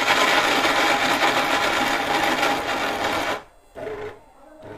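Orpat 1200-watt mixer grinder motor running at full speed for about three and a half seconds as its stainless blades mince chunks of meat with a little water, then stopping abruptly. It gives one short pulse near the end.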